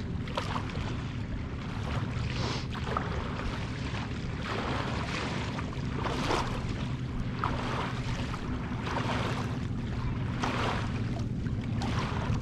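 Small choppy waves lapping and splashing at the water's edge every second or two, over wind on the microphone and a steady low hum.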